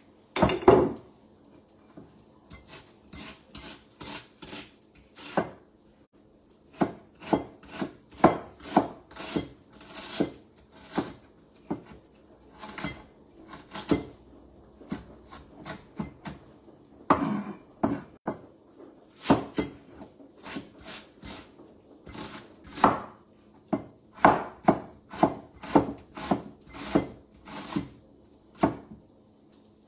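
Kitchen knife chopping onion on a wooden cutting board: sharp strikes of the blade on the board, about two a second, in short runs with brief pauses.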